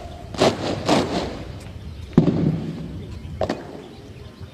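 Parade-ground drill: ranks of soldiers striking their rifles and stamping their boots together as they present arms in salute. There are about five sharp strikes, each slightly smeared where the ranks fall a little out of step, and the loudest comes about two seconds in.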